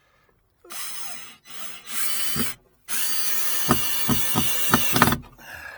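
Power drill-driver driving a hinge screw into the gate in three runs, the last and longest with a regular knocking about four times a second near its end as the screw bites home.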